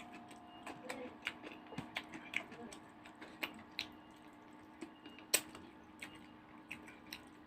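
Close-up eating sounds: someone chewing and smacking their lips over rice and katla fish curry, a string of small irregular wet clicks, with one sharper click about five seconds in.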